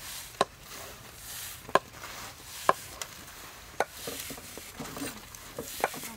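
Dry breadcrumbs rustling and pattering as hands scoop and toss them on a stainless steel tray. Five sharp clicks stand out at uneven intervals over the rustle.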